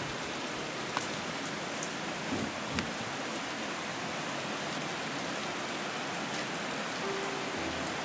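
Heavy, wind-driven typhoon rain pouring steadily, with a couple of sharp ticks of drops striking something close by about one and three seconds in.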